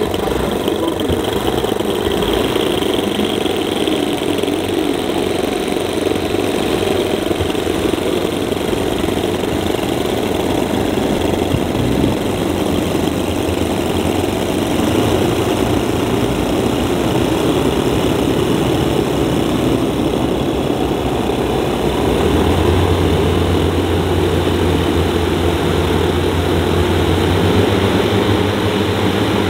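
The Dornier Do X model's twelve 10 cc OS engines running steadily on the ground while the model is held. About two-thirds of the way in, a deeper steady low note joins the engine sound.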